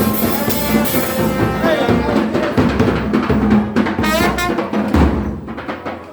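Chirimía chocoana band playing: wind instruments carry the melody over drums. The music dies away near the end.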